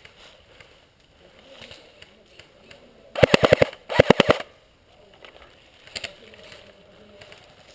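Airsoft gun firing two short full-auto bursts a little over half a second apart, each a rapid string of about five shots.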